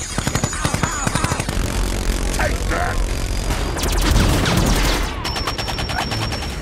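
Film sound effects of robot weapons firing: rapid automatic fire, about ten shots a second, at the start and again near the end, with a heavier blast and explosion effects in between.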